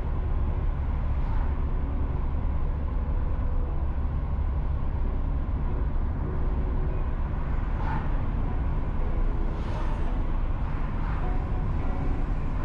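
A car being driven: a steady low rumble of engine and road noise, with a few faint brief swells over it.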